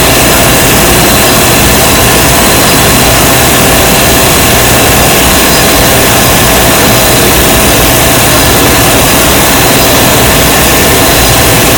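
CNC machine running steadily: a constant mechanical noise with a steady high whine over it, holding even throughout.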